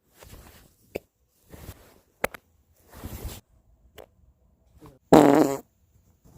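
A series of short, soft, airy farts with a few faint clicks between them, then one loud, pitched, buzzing fart lasting about half a second, about five seconds in.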